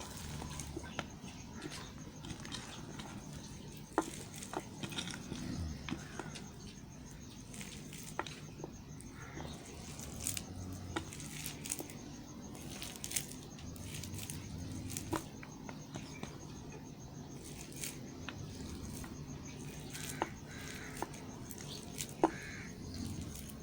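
A bar of soap being cut with a knife: scattered crisp clicks and crackles over a low steady hum, with the sharpest crack near the end.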